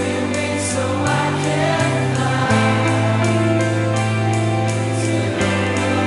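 Christian worship band playing, with voices singing together over a steady beat of regular cymbal strikes and a bass line that changes note a few times.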